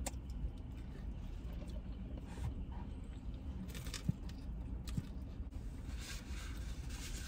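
Car cabin with a steady low rumble, and scattered rustling of a paper food wrapper with chewing as a passenger eats.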